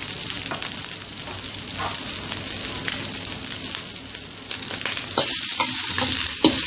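Chicken pieces, lemongrass, kaffir lime leaves and freshly added sliced shallots sizzling in a hot stainless steel wok. About five seconds in, a metal spatula starts stir-frying them, knocking against the wok, and the sizzle gets louder.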